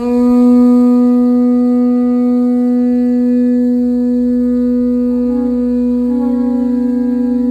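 Conch shell trumpet blown in one long, steady note, wavering slightly in pitch near the end.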